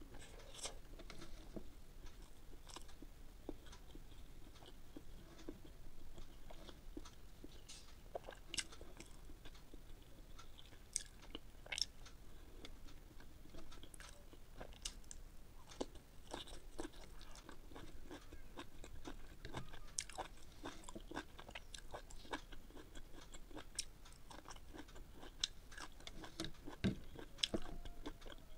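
Chewing and crunching of boiled egg and broccoli, close to the microphone, with many short sharp mouth clicks and smacks.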